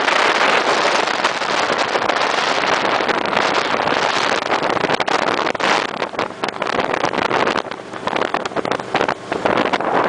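23-foot Interceptor speedboat under way at speed: a loud, steady rush of wind over the microphone mixed with engine and hull-on-water noise, buffeting unevenly and dipping several times in the second half.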